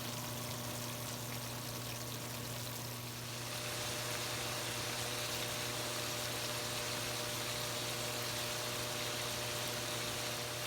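Pork frying in oil in a pan: a steady sizzle that grows louder about three and a half seconds in, over a steady low hum.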